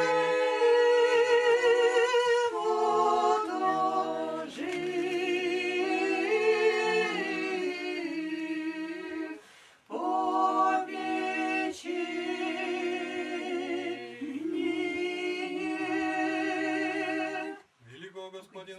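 Church choir singing Orthodox liturgical chant a cappella, several voices in held, harmonised notes. A short break about halfway through, and the singing ends shortly before the close.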